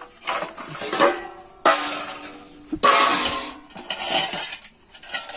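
Stainless steel bowls clanking against each other and on a concrete floor as they are set out, each knock leaving a metallic ring that fades. Several knocks, the two loudest around the middle.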